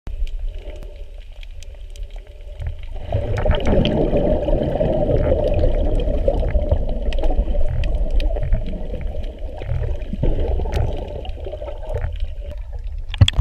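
Underwater sound of a moving camera held by a snorkeler: a muffled, low rush of water that swells from about three seconds in to about ten seconds as the camera sweeps through seagrass, with scattered faint sharp clicks throughout. A few loud sharp knocks come near the end.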